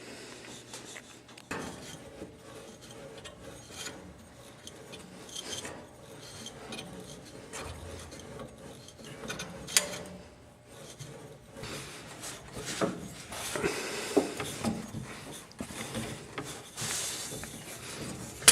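Hacksaw cutting through a copper water pipe, rasping in irregular back-and-forth strokes that grow louder near the end.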